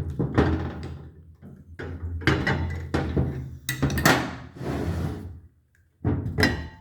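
Cam cap being pried loose and lifted off a 2004 Subaru single overhead cam cylinder head: a series of clunks and scrapes of metal parts in four short bursts.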